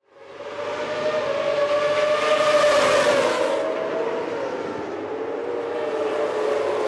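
Several Moto2 racing motorcycles running at high revs, fading in at the start; the engine pitch rises and then drops a little past three seconds in.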